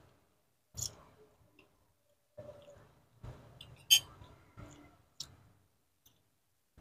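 Eating sounds: a metal spoon clicking against a ceramic bowl a few times, the sharpest click about four seconds in, between softer chewing and mouth noises.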